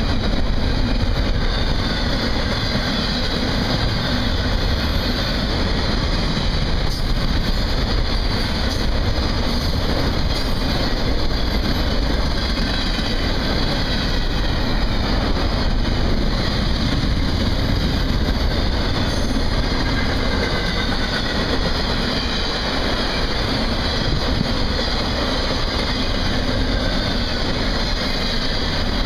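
Double-stack intermodal freight cars rolling past at speed, with a steady rushing noise from steel wheels on rail and no let-up.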